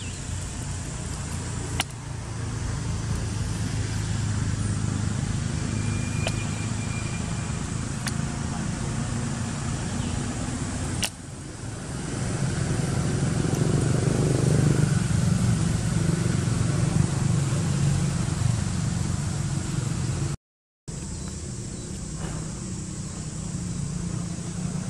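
A steady low engine rumble from a motor vehicle, growing louder about halfway through. The sound cuts out completely for a moment near the end.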